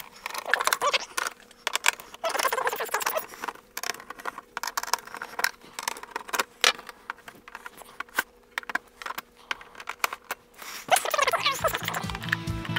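Rapid, irregular clicks and clatter of a screwdriver, small screws and plastic printer covers being handled, fast-forwarded. Background music comes in near the end.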